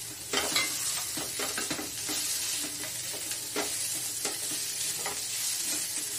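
Sliced onions and green capsicum sizzling as they fry in ghee in a nonstick pan, stirred with a silicone spatula in repeated short strokes. The sizzle grows louder about a third of a second in.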